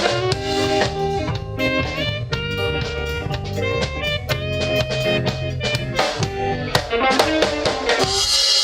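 Band music: an electric guitar playing notes over a drum kit beat.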